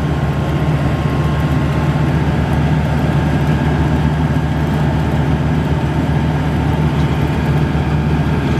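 Maxxi Bimo 102 combine harvester's diesel engine running steadily as the machine travels slowly on a dirt track, a deep even hum at constant level.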